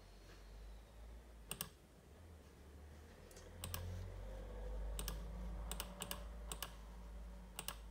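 Faint, irregular taps, about eight of them, as letters are pressed one at a time on the touchscreen keyboard of an Accent AAC communication device to spell out a word.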